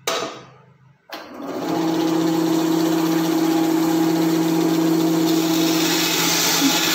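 Benchtop bandsaw switched on about a second in, coming up to speed and then running steadily with a steady hum, its blade free-running before it enters the wood.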